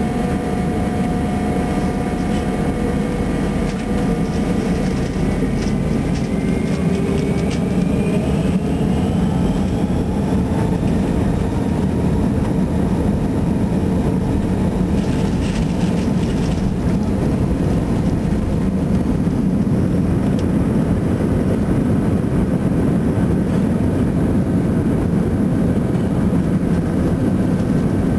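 Airbus A319 jet engines heard from inside the cabin over the wing during take-off: a loud, steady rumble with whining tones that rise in pitch several seconds in as the engines spool up to take-off power.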